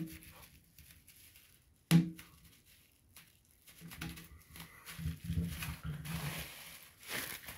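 Bubble wrap: one sharp pop about two seconds in, then the plastic sheet crinkling and rustling in the hands.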